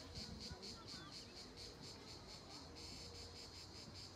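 Insects chirring faintly in an even, pulsing rhythm of about five pulses a second.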